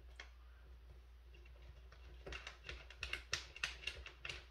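Small metal parts clicking and clinking together in a quick, irregular run of light ticks that starts about halfway in: steel assembly bolts being handled during the chair's assembly.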